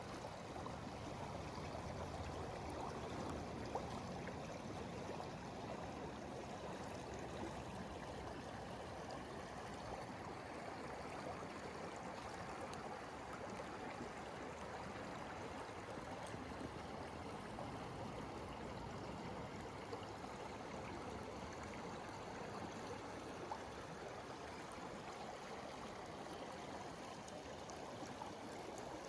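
Small stream running steadily, an even rush of flowing water.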